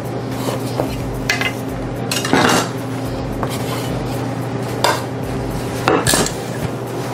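Kitchen tools being put away: a metal knife and a wooden rolling pin set down on a wooden cutting board, giving a handful of short clatters and knocks, the loudest about two and a half seconds in. A steady low hum runs underneath.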